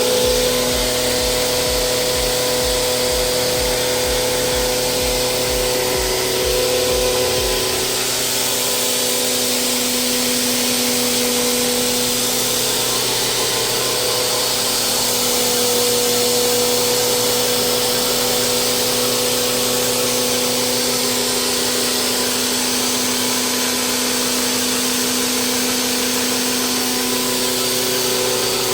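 Dry masala pulverizer driven by single-phase electric motors running steadily: a constant machine whir with hiss. A low rhythmic throb underneath stops about eight seconds in.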